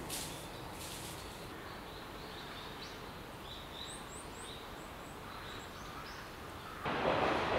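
Forest ambience: a steady hiss with a few short, high bird chirps in the middle. Faint crunches of footsteps in dry leaf litter come in the first second. Near the end a louder, even rushing noise starts abruptly.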